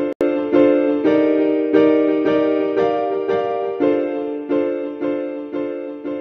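Background music: piano-like keyboard chords struck at a steady pulse, about two a second, with a very brief dropout just after the start and a gradual fade toward the end.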